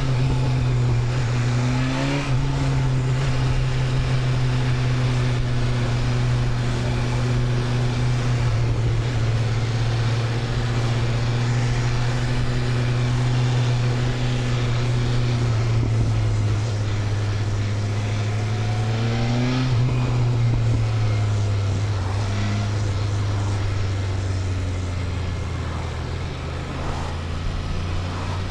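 2025 BMW S1000RR's inline-four engine running at a steady cruising pitch under wind rush. It gives short rising revs right at the start, about two seconds in, and again about nineteen seconds in. After about twenty seconds the engine note settles lower.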